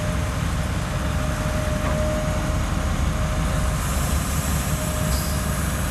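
Kobelco hydraulic excavator's diesel engine running steadily as a low rumble, with a faint steady whine above it.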